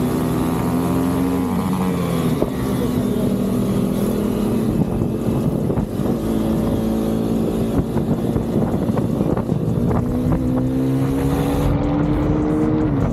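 KTM Duke 390's single-cylinder engine running hard under load, with wind rushing over the microphone. The engine note drops about a second and a half in, then climbs steadily over the last few seconds before falling away again near the end, as the rider goes up through the revs and shifts.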